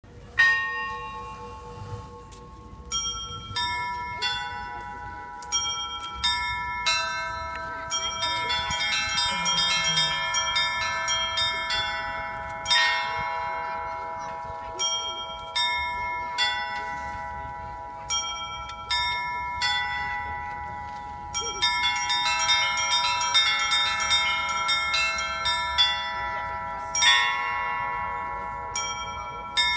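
Russian-style bell ringing (zvon) on a set of several bells of different pitches. It opens with a few separate strikes, then quickens into a fast, busy peal of the smaller bells over steadily ringing deeper bells. Heavier strokes come now and then, one near the start, one about halfway and one near the end.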